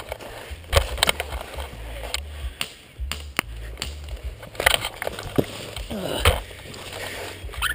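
Rustling and scraping of dry leaf litter and clothing as a prone player shifts on the ground, with scattered irregular knocks and a low rumble of handling noise on a body-worn camera.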